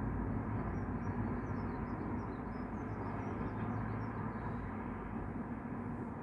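Steady low mechanical hum with a rushing noise, overlaid by a scatter of short, high chirps during the first few seconds.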